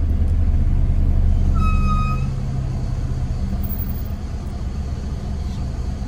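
Car brakes squealing once as the car brakes: a short, high-pitched squeal lasting about half a second, starting about one and a half seconds in. A steady low rumble from the car runs under it.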